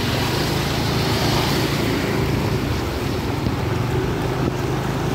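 Motorbike and auto-rickshaw engines running steadily as they wade through floodwater on a road, with water sloshing and splashing around the wheels and wind on the microphone.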